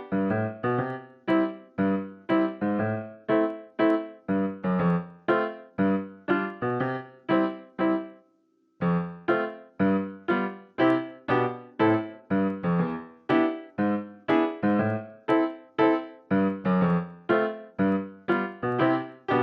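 Background music: a piano or electric-piano tune of evenly paced notes that breaks off for about a second midway, then resumes.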